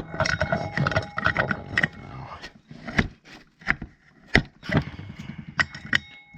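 Scissors scraping against a metal bolt and bell housing, then about six sharp metallic clicks and knocks as they slip on it: an improvised, unsuccessful attempt to turn the bolt.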